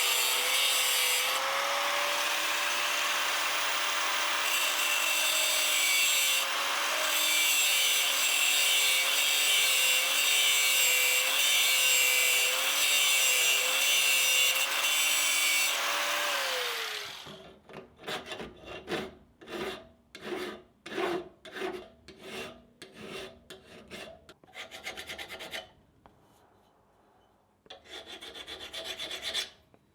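Electric grinder working steel, its motor pitch wavering slightly under load, then spinning down after about seventeen seconds. Then a hand file rasping over steel in even strokes, about two a second, with a short pause near the end.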